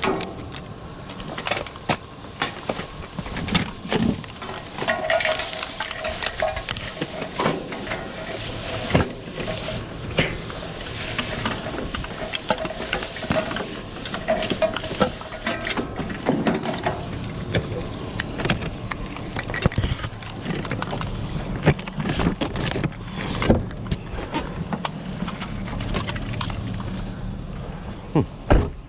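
Rummaging through junk in a dumpster: repeated clatters, knocks and rustling as debris is moved and pulled about.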